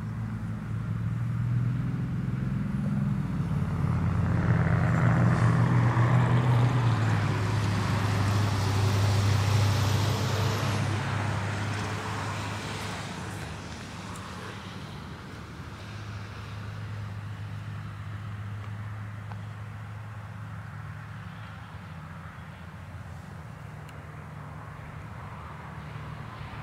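A passing road vehicle: engine and tyre noise swell over several seconds and fade away by the middle, over a steady low engine hum that carries on to the end.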